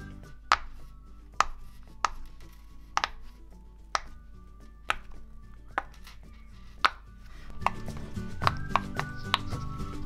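Silicone pop-it fidget toy bubbles being pressed through with a fingertip, each giving a sharp pop. The pops come singly about once a second, then several in quicker succession near the end.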